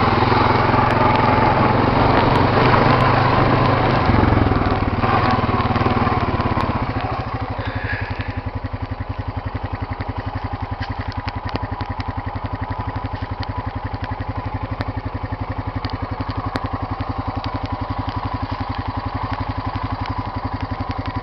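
Quad (ATV) engine running louder for the first several seconds, then settling to a steady idle about seven seconds in, its exhaust pulsing evenly.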